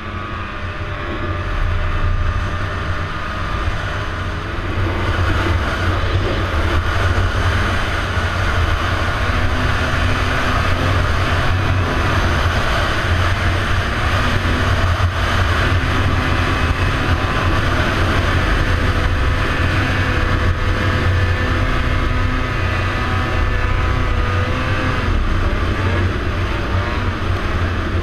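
Ski-Doo snowmobile running steadily at speed across snow, its engine and track noise building over the first few seconds and then holding.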